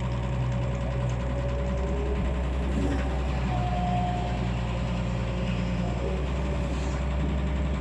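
Excavator's diesel engine running steadily with a low hum, and a faint higher whine over it that steps up slightly in pitch about halfway through.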